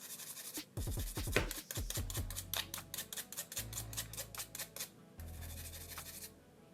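Toothbrush bristles scrubbing dirt off the two screws on an iPhone 14 Pro Max's frame in quick, short strokes, several a second.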